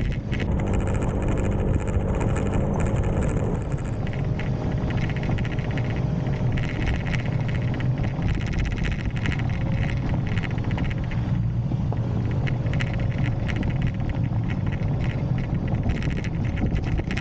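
Small single-cylinder motorbike engine running steadily while riding a rough dirt road, its pitch shifting a few times, with frequent rattles and jolts from the bike.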